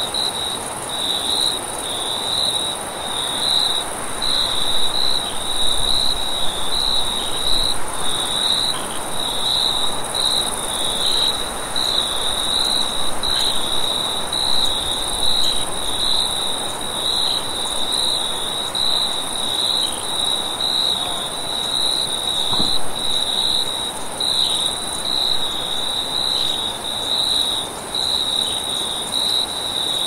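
Crickets chirping at night: a steady, even run of high chirps, with a continuous higher-pitched insect trill above them and a soft steady hiss beneath.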